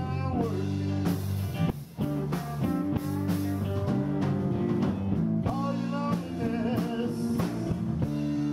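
Live blues band playing a slow blues: electric guitars with gliding, bent notes over bass and drums, with a brief break about two seconds in.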